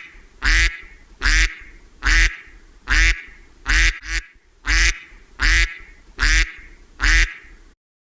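Duck quacking: a steady series of about ten loud quacks, a little under one a second, that stops shortly before the end.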